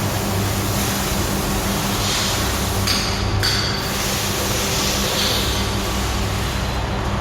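Square-pile steel cage welding machine running: a steady electrical hum under a rough noise, with brighter bursts of hiss about two to three seconds in and again about five seconds in.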